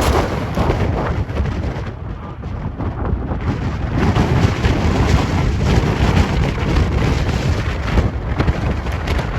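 Strong gusty wind buffeting the microphone, a loud low rumble that eases briefly about two seconds in and then builds again.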